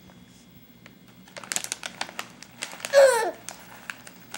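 A baby's crinkly foil snack pouch rustling and crackling in her hands, then about three seconds in a short babbling vocal from the baby that falls in pitch, the loudest sound.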